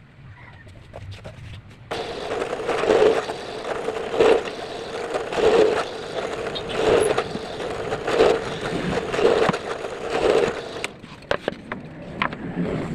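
Power drill boring into wood. It starts about two seconds in with a steady whine that swells and eases roughly once a second, then stops near the end, followed by a few light knocks.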